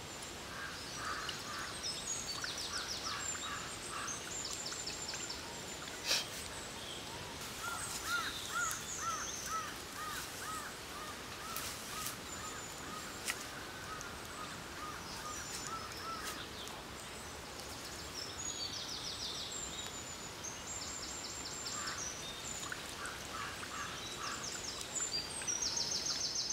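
Outdoor ambience with birds calling repeatedly over a steady background hiss. There are high chattering trills throughout, a run of lower rising-and-falling calls around the middle, and one sharp click about six seconds in.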